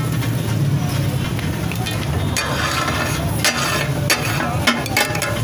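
Flat metal spatula chopping tomatoes and onions on a steel tawa griddle. It makes scraping sounds, then several sharp metal-on-metal clanks in the second half, over a steady low hum.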